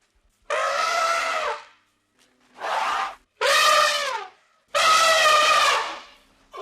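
Elephant trumpeting: four loud, brassy calls of about a second each, with short pauses between them.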